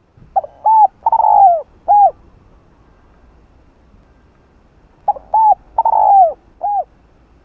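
Spotted dove cooing: two identical phrases about five seconds apart, each of four notes, the third note longer and falling in pitch.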